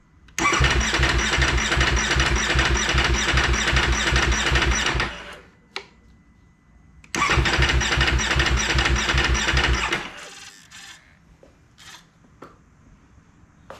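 2019 Ducati Panigale V4 S's 1103 cc V4 being cranked over by its starter in two long attempts, about five and three seconds, with an even pulsing rhythm. It does not catch and run: the cold hard-start problem this bike shows after sitting about a week.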